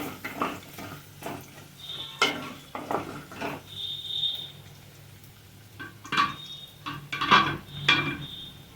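Spoon stirring a tempering of garlic, cumin, mustard seeds, urad dal, curry leaves and chillies frying in oil in a pan, clattering and scraping against the pan about three times a second. It goes quieter for a couple of seconds midway, then the clatters start again near the end.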